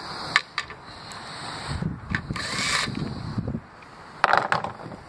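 A hand tool and bolts being handled on a clutch pressure plate bolted to a flywheel: a few sharp metal clicks near the start and again about four seconds in, with a short rustling scrape in the middle.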